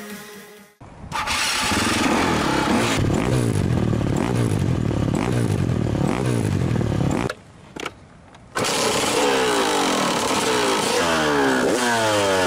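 Dirt-bike engine running and revved, heard up close at the exhaust. After a short break, the 2000 KTM 200 EXC two-stroke is blipped again and again, each blip rising in pitch and then dropping back.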